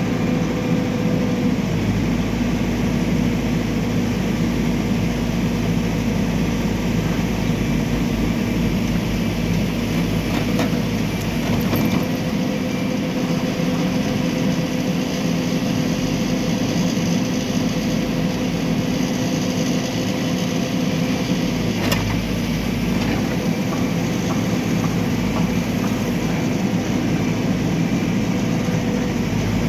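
Backhoe loader's diesel engine running steadily at a constant pitch, with a faint click or knock now and then.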